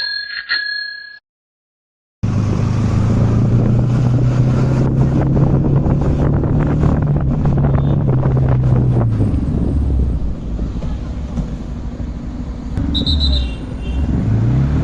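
A short electronic tone, a second of silence, then a Yamaha MT-15's single-cylinder engine running at a steady pitch under wind noise while riding, easing off about nine seconds in.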